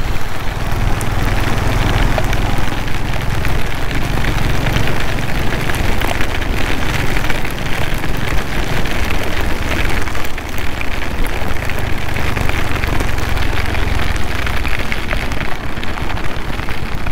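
Torrential rain pelting down on a motorcycle and its rider at speed, a dense hiss full of tiny drop impacts, with a steady low rumble of wind and engine underneath.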